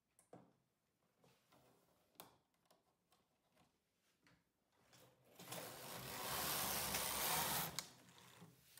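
Carriage of a midgauge (6 mm) knitting machine pushed across the needle bed: a rushing, rattling slide of about two and a half seconds, starting about five seconds in and ending with a click. A few light scattered clicks come before it.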